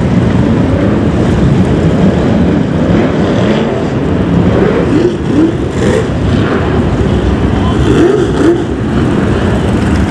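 Several BriSCA F1 stock cars' V8 engines running loudly together, with brief blips in revs about halfway through and again near the end.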